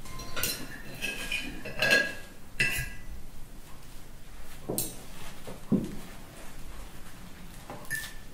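Cutlery clinking against plates at a meal: scattered sharp clinks, several of them ringing briefly.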